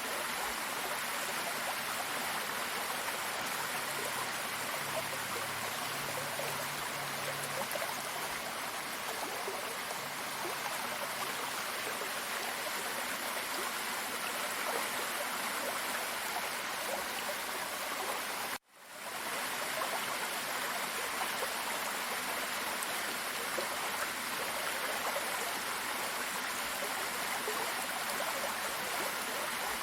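Steady rush of running water from a waterfall-fed stream. About two-thirds of the way through it cuts out suddenly for an instant, then fades back in.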